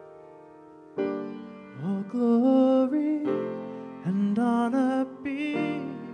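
Live song: sustained piano chords, a new chord struck about a second in, with a voice singing drawn-out phrases over them from about two seconds in.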